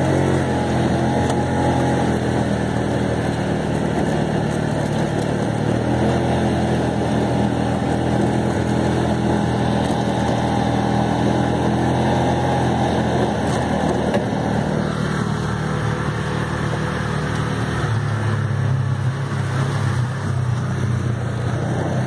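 Engine of an off-road side-by-side utility vehicle running while driving along a dirt trail, heard from on board, its note shifting a few times with the throttle.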